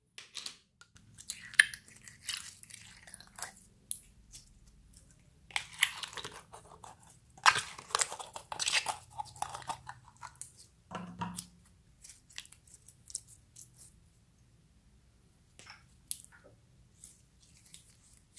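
Clear slime being pulled and squeezed by hand, making clicky, crackling sounds in two busy spells, the second the longer and louder, then only scattered clicks.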